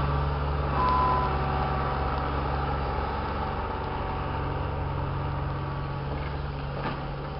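Wheeled excavator's diesel engine running steadily with a low drone, with a short high-pitched tone about a second in. The engine sound eases slightly toward the end.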